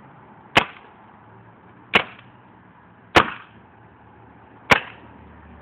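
Four shots from a VL Triton 2 paintball gun, fired singly a second or more apart, each a sharp crack with a short tail.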